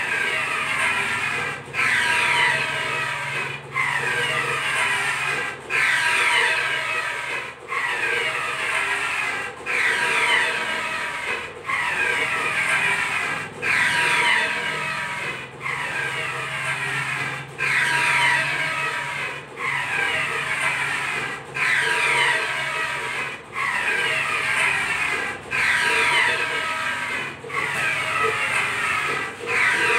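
Large-format inkjet printer's print-head carriage sweeping back and forth, a whirring pass about every two seconds with a brief pause as it reverses at each end.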